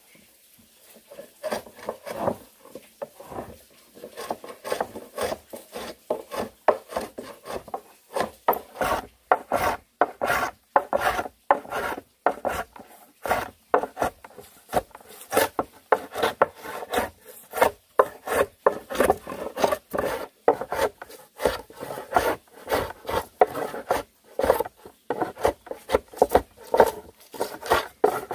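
Wood being worked by hand with rasping back-and-forth strokes in a quick, regular rhythm, fainter for the first few seconds and then steady.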